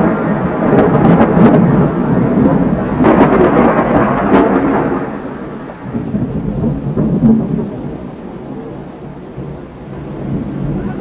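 Thunder rumbling with sharp cracks over rain, loud for about the first five seconds, then dying away to a lower rumble.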